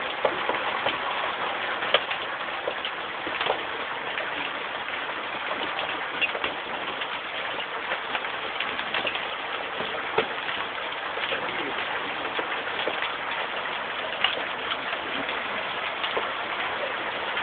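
Heavy rain and hail pelting down, a steady hiss scattered with the sharp cracks of individual large hailstones striking hard surfaces; a few strikes stand out louder than the rest.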